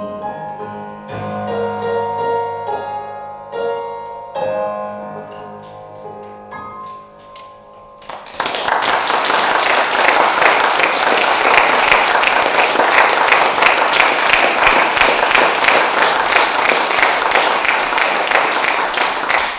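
Nord Piano 3 stage piano playing the closing bars of the song alone, its notes dying away. About eight seconds in, loud audience applause starts and keeps going.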